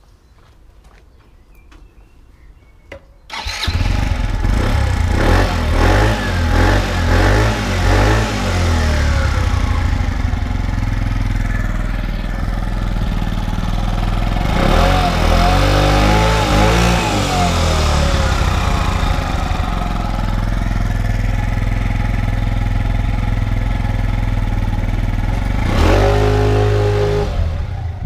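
Peugeot Speedfight 3 four-stroke scooter on its standard exhaust starting about three seconds in. It is then revved in repeated short blips, settles to idle, revs up and down again, idles steadily, and rises in pitch near the end as it pulls away.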